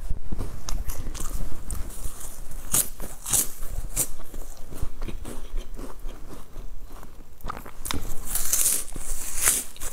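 Close-miked biting and crunching into crisp, hollow rolled brown snack sticks: sharp crunches on each bite, loudest a few times around three to four seconds in and again near the end, with chewing in between.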